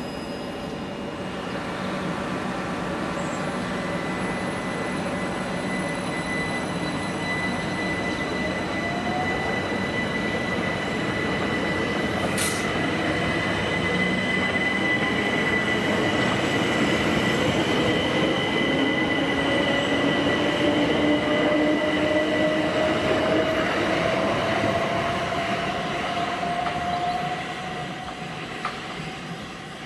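Southern Class 377 electric multiple unit pulling away from the platform: its traction motors whine, rising slowly in pitch as it gathers speed, over wheel-and-rail rumble and a steady high whistle. The sound builds to a peak, then fades near the end, with one sharp click about twelve seconds in.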